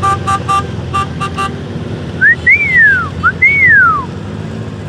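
A horn on a passing parade ATV beeps in two quick sets of three short notes over the steady running of the vehicles' engines. A couple of seconds in come two whistled glides, each rising briefly and then falling slowly.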